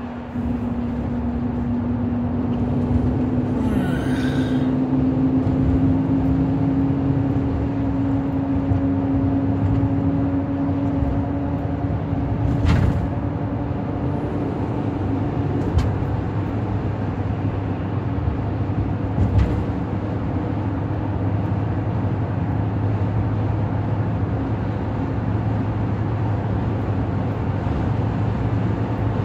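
Steady road and engine noise inside a car's cabin while driving on a freeway, with a low, even hum. Three brief knocks come near the middle.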